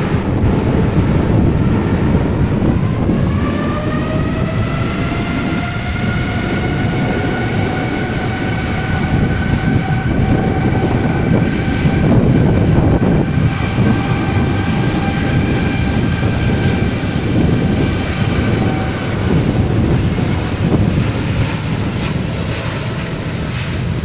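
Boeing 787's Rolls-Royce Trent 1000 jet engines spooling up to takeoff thrust: a whine rises over about three seconds, then holds steady as the airliner accelerates along the wet runway, and fades near the end. Heavy wind buffeting on the microphone and rain noise run underneath and are the loudest part.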